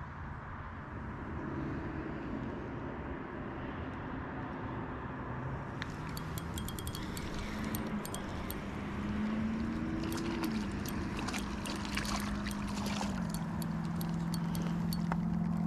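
Spinning reel being cranked to bring in a small crappie, with a fast run of light clicks and ticks from about six seconds in. A low hum that steps in pitch runs underneath and grows louder toward the end.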